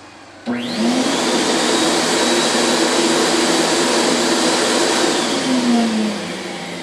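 Fuji Super4 four-stage HVLP turbine switched on about half a second in, its whine rising quickly as it spins up, then running with a steady rushing hum. It is switched off near the end and winds down in falling pitch.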